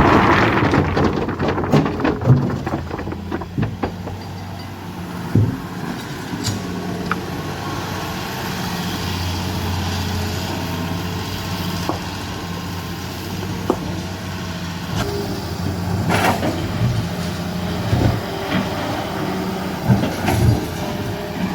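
A heavy diesel engine running steadily, with scattered knocks and clanks over it, most of them in the first few seconds.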